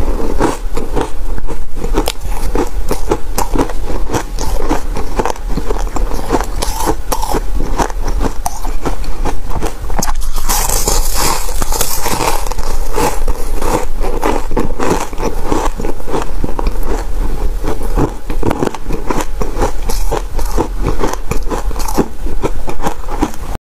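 Close-miked biting and chewing of refrozen ice chunks: dense, rapid crunching and crackling, with a harsher, crumbly stretch about ten seconds in.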